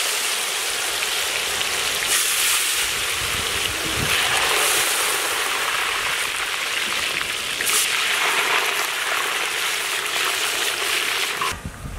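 Raw banana pieces deep-frying in a large iron kadai of hot oil: a steady, loud sizzle of froth and bubbles from the moisture boiling off the fresh pieces. It stops abruptly near the end.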